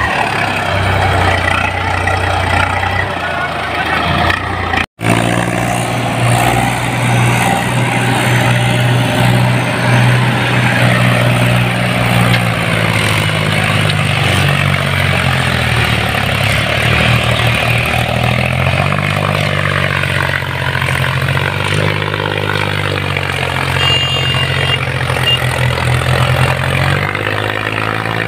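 Diesel tractor engines working under load while pulling fully loaded soil trolleys. There is a brief dropout about five seconds in. After it a Mahindra 265 DI runs steadily with the rest, its pitch shifting a little near the end.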